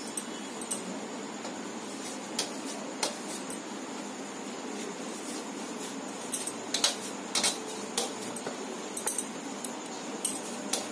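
Light, irregular clicks and clinks of a steel plate as fresh chhana (cheese curd) is kneaded on it by hand, bunched more densely in the second half, over a steady background hiss.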